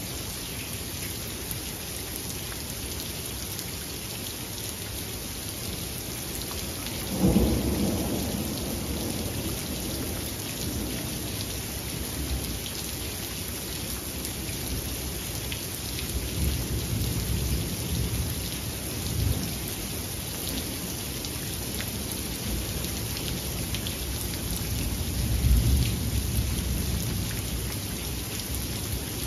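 Steady rain falling, with a sharp clap of thunder about seven seconds in that rolls away over a few seconds. Further low rumbles of thunder follow later, one as loud as the first near the end.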